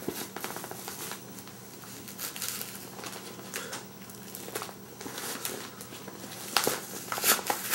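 Phone book pages crackling and tearing as the book is twisted and ripped apart by hand, in short irregular rips, a few louder ones near the end.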